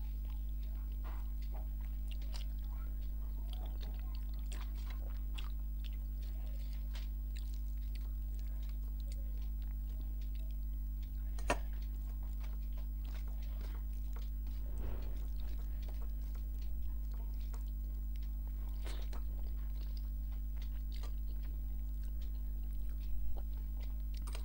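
Eating by hand: fingers mixing rice and curry on a stainless steel plate, and chewing, heard as many small soft clicks with one sharper tap about halfway through. A steady low hum runs underneath.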